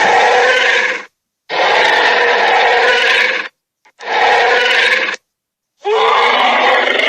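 Tyrannosaurus rex roar sound effects: four loud, growling roars of one to two seconds each, separated by short breaks of dead silence.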